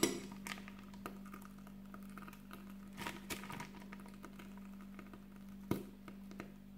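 A glass dessert cup is set down on a table with a click. A few faint taps and rustles follow as cream is piped from a piping bag into the cups, over a steady low hum.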